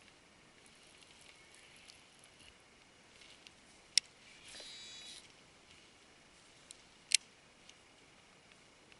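A cast with a Shimano Metanium DC baitcasting reel. A sharp click as the clutch is thrown, then the high whine of the reel's electronic DC brake for under a second as the spool spins out. A second loud click about three seconds later as the handle is turned and the reel re-engages.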